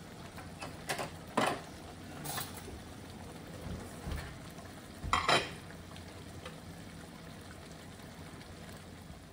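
A spoon knocking and scraping against dishes: a few short clinks in the first couple of seconds and a louder pair about five seconds in, as rice is served out. A pot simmers faintly throughout.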